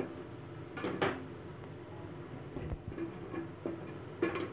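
Wooden spatula scraping and knocking against the inside of a metal pressure cooker while stirring thick masala gravy, with two louder scrapes about a second in and near the end.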